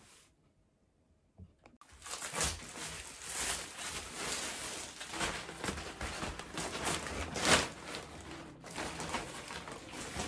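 Rustling and crinkling of a folded IKEA SKUBB fabric storage case being unfolded and shaped by hand, starting about two seconds in after a moment of near silence.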